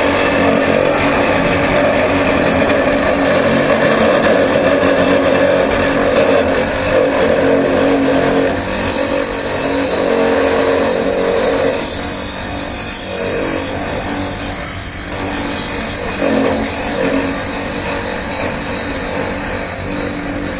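Electric grinding attachment running a small grinding wheel against the weld joint of a bimetal band saw blade: a steady, loud grinding noise over the motor's whine.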